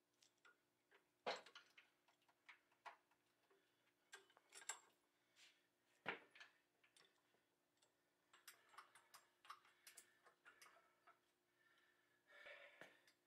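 Faint, scattered clicks and light knocks, with two sharper knocks, one about a second in and one about six seconds in.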